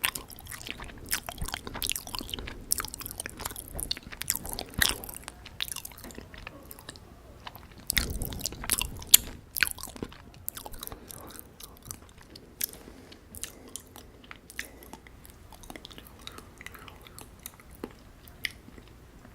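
Close-miked chewing of syrup-soaked gulab jamun: wet mouth sounds with many sharp clicks and smacks, busiest in the first half and thinning out toward the end.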